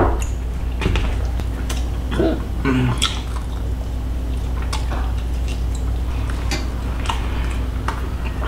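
A person eating a bowl of bone-in squirrel stew: a spoon clinking against a ceramic bowl and chewing on meat, heard as scattered short clicks and smacks over a steady low hum.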